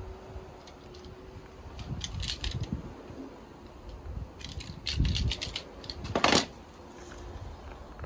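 Hand-held wire stripper clicking as it grips and strips insulation from thin red, yellow and black wires: several short clusters of clicks, with a louder brief rasp about six seconds in.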